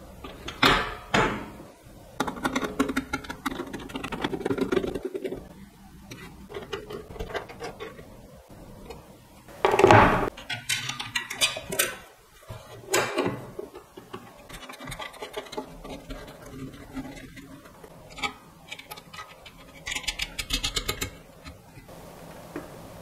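Hand-assembly noises on a metal amplifier chassis: clicks, knocks and scrapes as a circuit board and cables are handled and fitted. The loudest knock comes about halfway through, and there is a quick run of ticks near the end.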